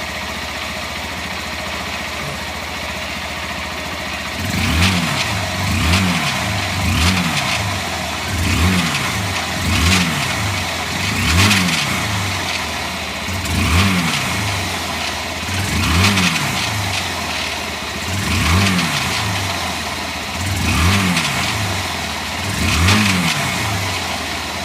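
Honda CG Fan 150 single-cylinder motorcycle engine idling, then revved in eleven short throttle blips, each rising and falling in pitch. It carries a strange noise that grows only when revved, which the owner takes for a bearing.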